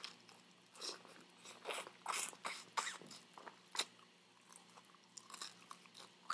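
A person biting and chewing Jollibee Chickenjoy crispy fried chicken, heard close up: irregular crackly crunches of the breaded skin between quieter chewing, with a few sharper crunches near the middle.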